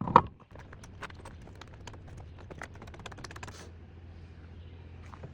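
A sharp knock, then scattered light clicks and taps for about three seconds, over a faint steady low hum.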